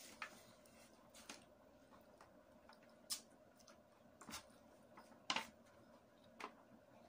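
Faint eating sounds from eating by hand out of an aluminium foil tray: about six short clicks and smacks, spaced a second or so apart, over quiet room tone.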